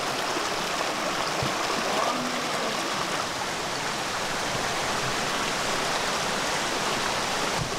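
Stream water rushing steadily.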